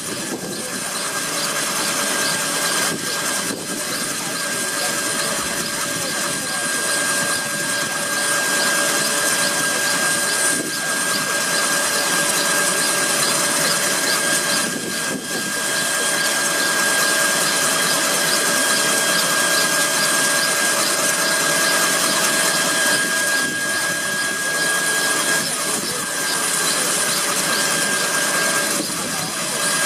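Kaman K-MAX intermeshing-rotor helicopter running on the ground with its rotors turning: its turboshaft engine gives a steady high whine over a continuous rushing noise from the rotors.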